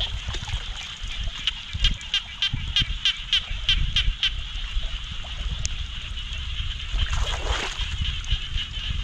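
Shallow floodwater splashing and sloshing as a person wades and works in it, with a louder swell of splashing about seven seconds in. Behind it runs a steady high chorus of night animal calls, with a run of rapid pulsed calls, several a second, in the first half.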